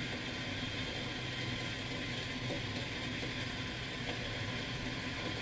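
Steady low hum with a soft hiss in a kitchen, unchanging and without distinct knocks or clinks.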